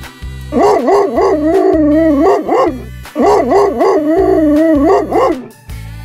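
A dog howling in two long runs of about two seconds each, the pitch wavering up and down several times a second, the second run starting about three seconds in. Background music with a steady beat plays underneath.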